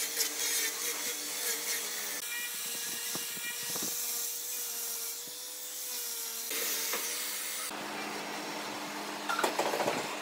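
Electric angle grinder with a sanding attachment running steadily, its motor whining while the abrasive rubs along the curved edge of a pine board. The sound changes abruptly a few times, and a short run of sharp clicks comes near the end.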